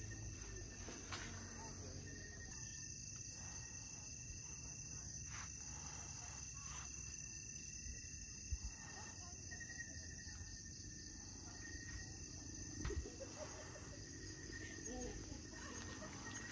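Insects chirring steadily, a continuous high-pitched drone with fainter lower tones beneath it, broken by a few faint knocks.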